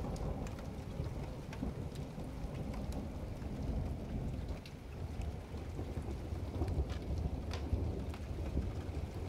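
Thunderstorm: rain falling, with scattered drops ticking close by over a low, continuous rumble of thunder.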